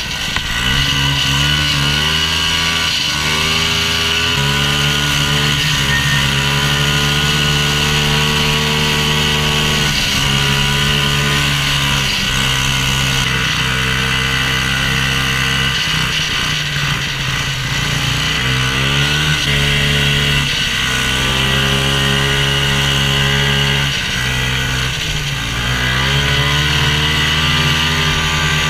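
Old two-stroke snowmobile engine running under way, heard from the rider's seat, its revs rising and falling repeatedly as the throttle is eased off and opened again.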